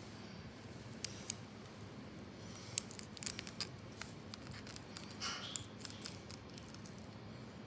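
Kitchen knife cutting open a raw sardine along its back on a cutting board: scattered small crisp clicks, bunched about three seconds in, and a short scrape a little after five seconds.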